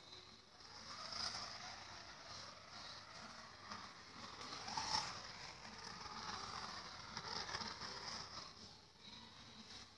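Toy bullet train running on its track: a faint rattling whirr that swells and fades, loudest about halfway through.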